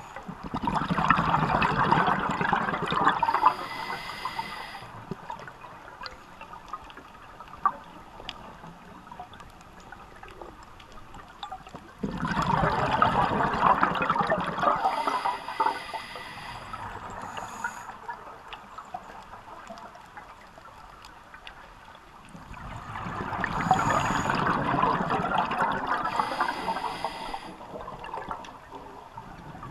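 Scuba diver breathing through a regulator underwater: three long bursts of exhaled bubbles, about ten seconds apart, with a thinner hiss after each.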